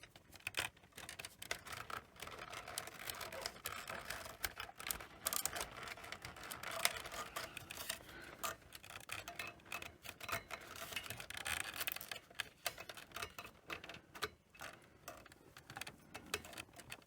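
Irregular clicks, taps and rustling of hands working inside a Sony Betamax SL-C5 video recorder, handling its wiring and plastic connectors.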